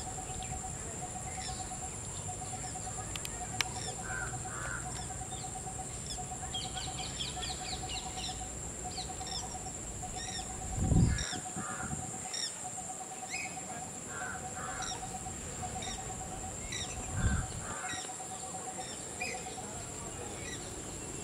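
Birds calling at dusk: one repeats a short run of low piping notes about once a second while others chirp and one gives a brief trill, over a steady high insect drone. Two brief low thumps, about halfway through and again a few seconds later, are the loudest sounds.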